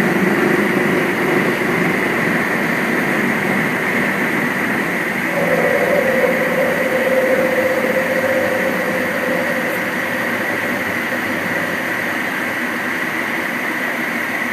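Boeing 737-800 flight deck noise in the initial climb just after gear-up: the CFM56-7B engines at climb power and rushing air, with a steady high hum. A tone comes in about five seconds in and fades out over the next few seconds.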